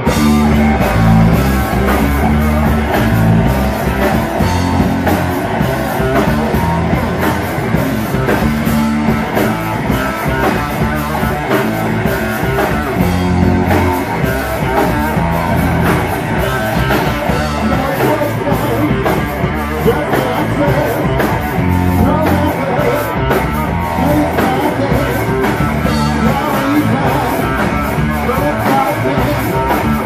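Live rock band playing loud, with electric guitar and drum kit; the full band comes in right at the start after a lone guitar tone.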